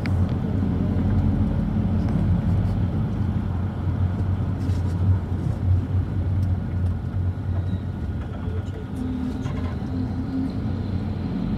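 Inside a moving car: a steady low engine hum with tyre noise from the wet road.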